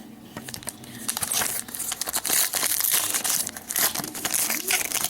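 Foil wrapper of a Panini Prizm basketball card pack crinkling and tearing as it is handled and opened, growing louder about a second in.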